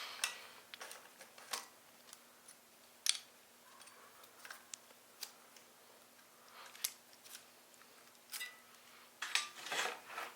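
Scattered light clicks and clinks of metal bike parts and hand tools being handled and set down, about a dozen separate knocks with a short cluster near the end.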